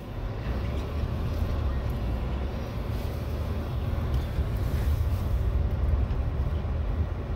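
A car driving, heard from inside the cabin: a steady low rumble of engine and tyres, getting a little louder about a second in.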